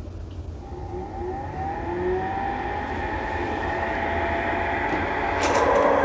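Sharper Image Sound Soother's built-in motor fan running with a whir that rises in pitch and grows louder. Near the end a few clicks come as the top is handled and pulled open, which changes the pitch of the white noise, and the noise gets louder.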